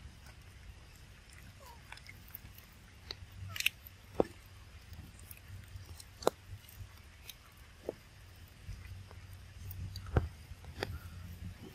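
Young monkey chewing: scattered sharp crunching clicks a second or more apart over a low steady rumble.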